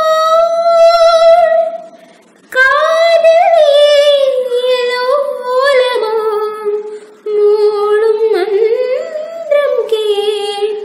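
A young female voice singing solo, unaccompanied: a long held note, a short breath about two seconds in, then phrases with quick ornamental turns that gradually fall in pitch.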